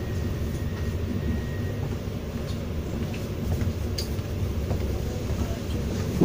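Steady low rumble of a regional passenger train running, heard from inside the carriage, with a few faint clicks and rattles.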